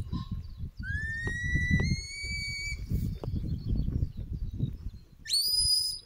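Handler's whistle commands to a working sheepdog: one long whistle rising slightly in pitch, then near the end a short, sharp whistle sweeping steeply upward. Wind buffets the microphone throughout.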